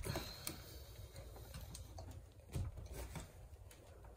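A few faint clicks and light knocks of hands working blue PEX pipe into a brass SharkBite push-fit fitting.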